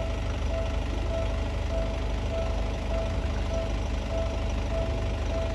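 Japanese railway level-crossing alarm ringing, one tone repeating evenly about three times every two seconds, over a steady low rumble.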